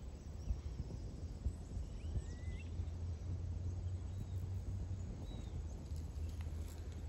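Outdoor field ambience: a steady low rumble with a few faint bird chirps, two short rising calls about two seconds in.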